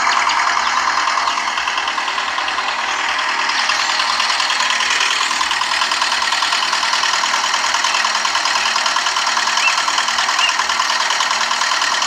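Miniature single-cylinder diesel engine model running steadily with a rapid, even chugging while it drives a small belt-driven water pump.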